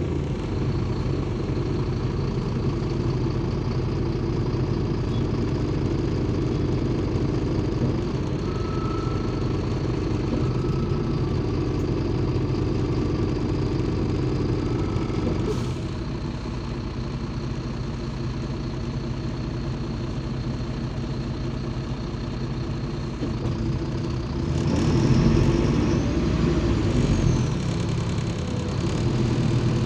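Cabin sound of a MAZ 203 city bus under way, its Mercedes-Benz OM 926 LA six-cylinder diesel running steadily. The engine drops a little about halfway through and grows louder again for a few seconds near the end.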